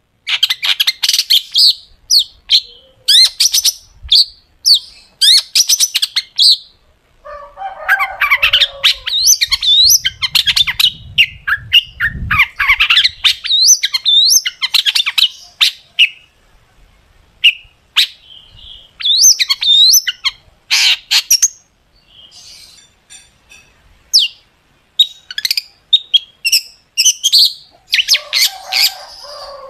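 Long-tailed shrike (cendet) singing in full voice: rapid bursts of sharp, high chattering notes broken by short pauses. Harsher rasping stretches come about eight seconds in and again near the end, the sharp "tembakan" phrases of its song.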